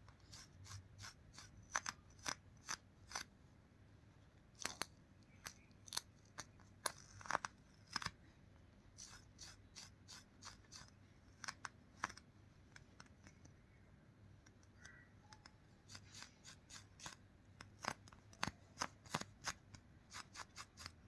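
Scissors snipping, likely through nano tape: many short, sharp snips at irregular intervals, some in quick runs of two or three.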